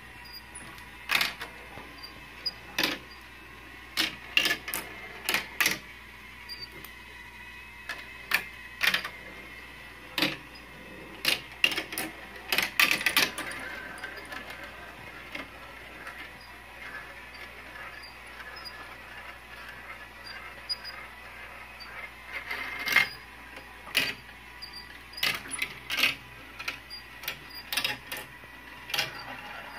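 Marbles rolling and clattering through plastic marble-run tracks, tubes and funnel bowls: irregular bursts of sharp clicks and rattles, densest in a flurry about halfway through and again near the end, with a quieter lull between. A faint steady whine runs underneath.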